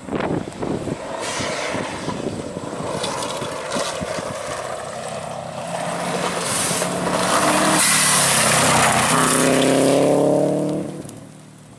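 A rally car coming along a gravel forestry road: tyre and gravel noise with the engine note, building steadily, loudest about ten seconds in, then dropping away sharply near the end.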